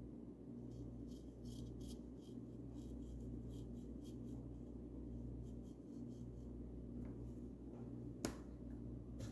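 Paintbrush bristles brushing paint onto a wooden bird house: a series of short, soft scratchy strokes, over a steady low hum. A single sharp click about eight seconds in.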